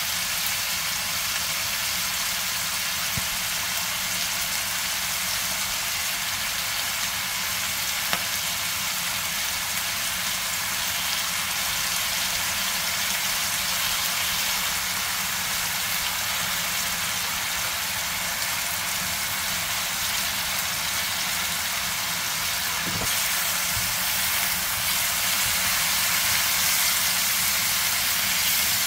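Bacon and cabbage sizzling in hot oil in a frying pan as sauces are spooned over them, with a couple of light taps. The sizzle grows louder about 23 seconds in.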